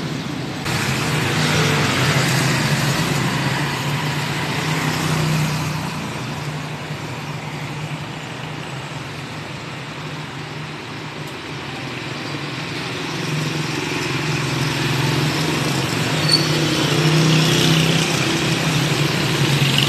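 Street traffic: motor vehicles running and passing, with a steady engine hum that swells louder about two seconds in and again near the end.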